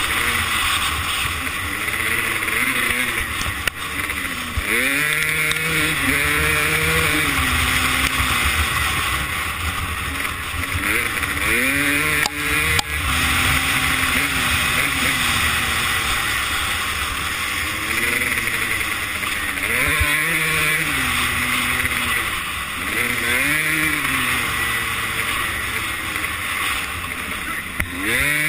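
Two-stroke 250 motocross bike engine pulling hard up through the revs, then dropping back as it shifts or eases off, over and over; the rising and falling pitch repeats every few seconds, heard close from the camera rider's own bike.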